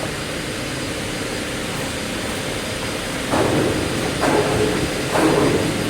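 Steady factory machinery hum. About halfway through, a wide abrasive sanding belt is being slid onto a sanding roller, making rubbing, scraping strokes about once a second.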